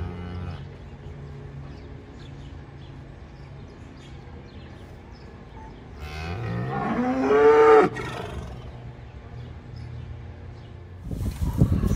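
A cow mooing once, a long call that rises in pitch about six seconds in and cuts off sharply. Another loud, rough low sound starts just before the end.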